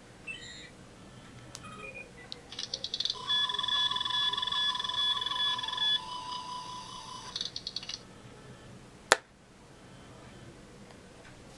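Sound chip of a Star Trek Mark X medical tricorder prop. It plays a rapid electronic ratchet as the lid opens, then a steady warbling scanning tone with pulsing beeps for about three seconds, and a second ratchet as it closes. About nine seconds in comes a single sharp click, the loudest sound, as the lid shuts.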